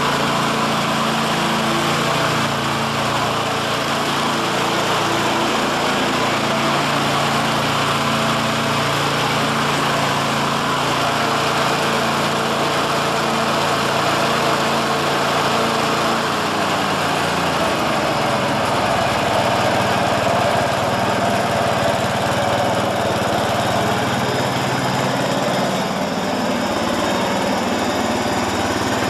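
Ransomes Bobcat 36-inch walk-behind mower with its upgraded Honda 11 HP single-cylinder engine running steadily; the engine note shifts slightly a little past halfway.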